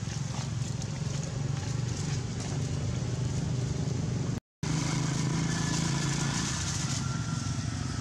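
A steady low engine hum under an even hiss, with no clear event standing out; the sound cuts out completely for an instant about halfway through.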